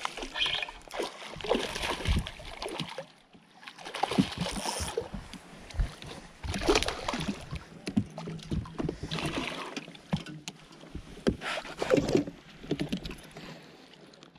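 Hooked smallmouth bass splashing and thrashing at the surface beside the boat, in irregular bursts of splashing and sloshing water, dying down near the end as the fish is landed.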